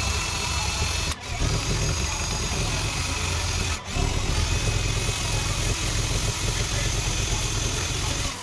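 Cordless drill spinning a rubber eraser wheel against a car's lower door, scrubbing off double-sided adhesive tape residue: a steady motor hum, broken twice briefly, about a second in and near four seconds.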